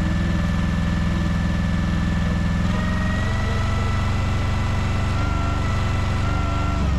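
Mini excavator's engine running steadily with a thin hydraulic whine over it. The whine steps up in pitch about three seconds in and the engine note shifts with it, as the hydraulics take up load; near the end the whine slides down.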